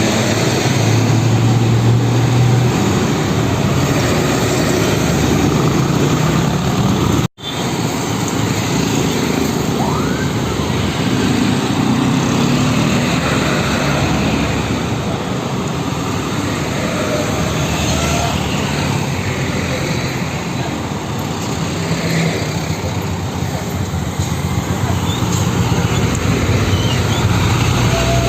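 Steady road traffic with heavy diesel truck engines running. The sound drops out for a split second about seven seconds in.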